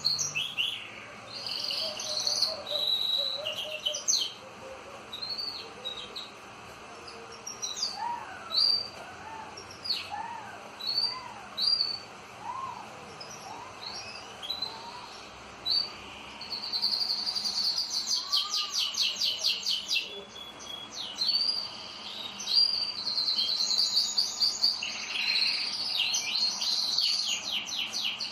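Domestic canaries singing: quick chirps and whistled notes, with long rapid trills a little past the middle and again near the end.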